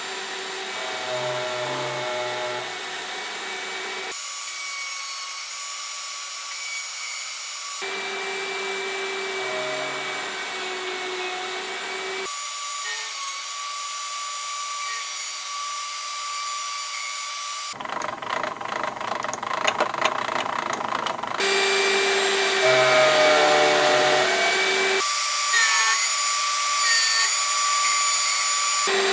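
Router in a horizontal mortiser running steadily with a high whine while its bit cuts mortises into the end of a cherry rail. The sound shifts abruptly every few seconds, with a stretch of rapid ticking about two-thirds of the way through.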